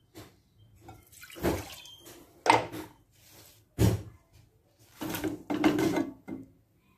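Water and shaved palm sugar going into an empty non-stick pan: a pouring splash and the scrape of sugar sliding off a plastic cutting board, about five seconds in. It comes after a few sharp knocks of handling about 1.5, 2.5 and 4 seconds in.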